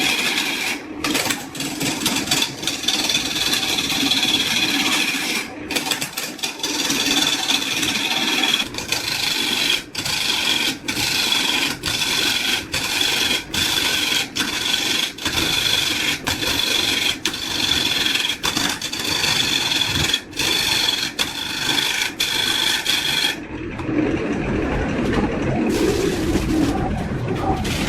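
Wood being worked by hand with a rasping tool in repeated strokes, a little over one stroke a second. Near the end the strokes give way to a duller, lower sound.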